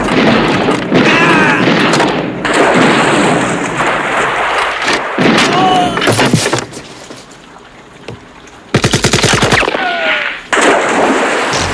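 Film battle sound of automatic gunfire and blasts, with a few yells; after a short lull a rapid burst of machine-gun fire comes about two-thirds of the way through.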